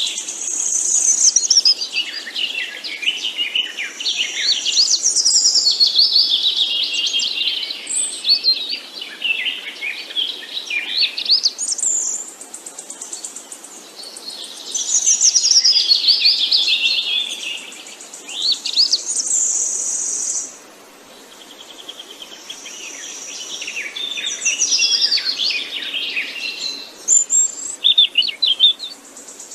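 Songbirds chirping and singing in quick, overlapping phrases of rapid rising and falling notes. A steady high buzzing note sounds now and then, and the singing eases briefly about two-thirds of the way through.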